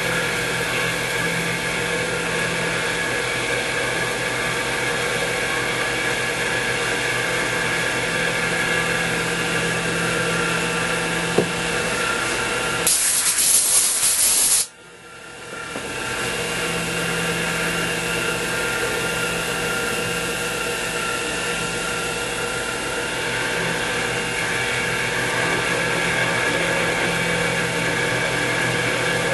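X2 mini mill running with a drill bit in the spindle: a steady motor and gear whine as the bit is fed slowly through a hole in the bracket. About halfway through, a loud hiss lasts under two seconds and then cuts off suddenly, and the running sound fades back in over a second or so.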